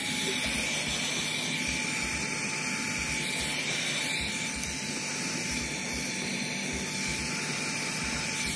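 Electric heat gun running: its motor comes on with a short rising whine that settles into one steady tone over a steady rush of hot air. It is warming a PVC hose connector and rubber hose that are too stiff in the cold, so the hose will slide on.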